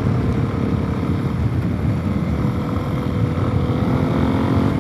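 Suzuki DR-Z400S single-cylinder four-stroke running at a steady road cruise, its pitch easing slightly, over a constant rush of wind noise. The bike is re-jetted to suit its aftermarket exhaust.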